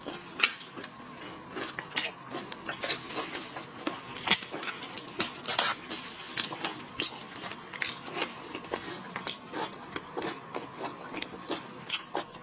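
Irregular small clicks, cracks and scrapes of cooked lobster and shrimp shells being broken and peeled by hand on a plate.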